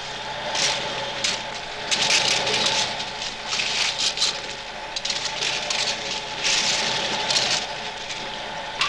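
Construction-site ambience: an engine runs steadily, with irregular bursts of clatter from the work.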